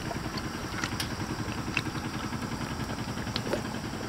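Wood and charcoal fire in a camping fire grill crackling, with sharp scattered pops over a steady low rumble.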